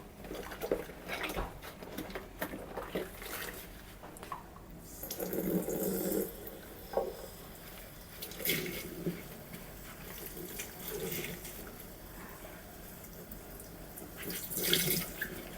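Water sloshing and splashing in a sink as Shark stick-vacuum parts are washed by hand, with scattered light knocks of the parts against each other and the basin. A longer burst of swishing comes about five seconds in and another near the end.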